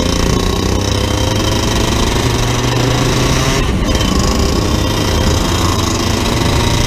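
Vortex 125cc two-stroke shifter kart engine running loud and close, heard from the driver's seat as the kart moves off at low speed. The engine note holds fairly steady and climbs a little near the end.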